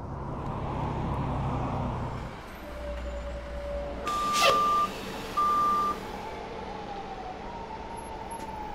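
City street sound: a low traffic rumble with a siren wailing, its pitch slowly falling in the second half. About halfway through come two short, flat, steady beeps, the loudest sounds.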